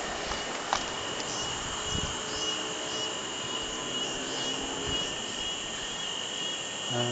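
Insects chirring steadily in a high-pitched, slightly pulsing tone, with one sharp tap about a second in.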